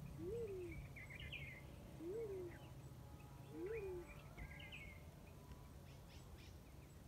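Black-chinned fruit dove call: three faint, low hoots, each rising then falling in pitch, about two seconds apart. Small birds chirp and twitter higher up.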